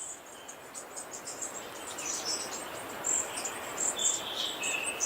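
Natural bush ambience: insects chirping with many short, high bird chirps over a soft background hiss that builds slightly.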